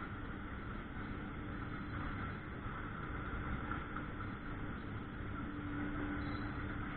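An engine running steadily, with a low steady hum under it.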